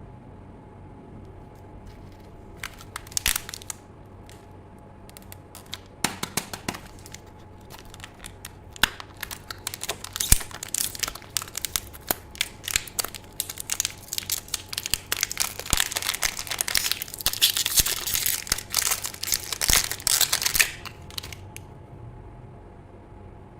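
Plastic food packaging crinkling and being torn open. The rustling comes in scattered bursts at first, grows dense and loudest about three quarters of the way through, then stops shortly before the end.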